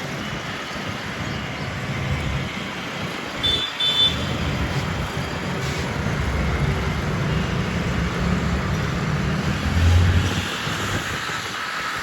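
Road traffic noise: a steady low rumble of passing vehicles, with two short high beeps about three and a half seconds in and a louder low swell near the end as a vehicle passes close.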